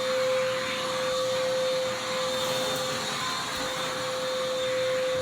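Oreck XL handheld vacuum cleaner running steadily, its motor holding one even high whine over a rushing hiss of air.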